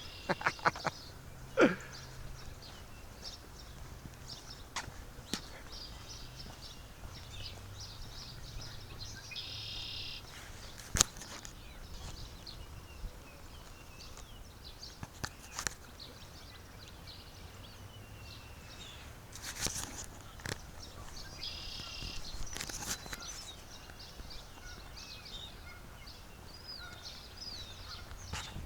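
Outdoor birds calling: many short chirps, with a couple of longer, harsher calls near the middle and later on, over a faint low steady hum. A few sharp clicks stand out as the loudest sounds.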